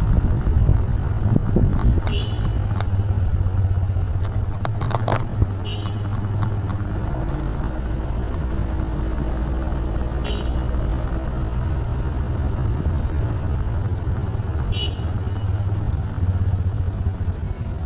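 A motor vehicle running with a steady low rumble, with a few brief, sharp high-pitched sounds scattered over it.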